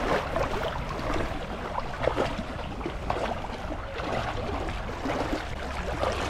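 Water swishing and splashing around legs as people wade through a thigh-deep spring run, a steady irregular sloshing.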